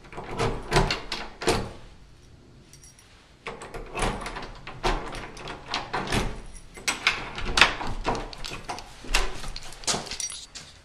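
A locked wooden door being tried and shaken: repeated irregular knocks and rattles of the door in its frame and of its handle, in two spells with a short pause between them, the door staying shut.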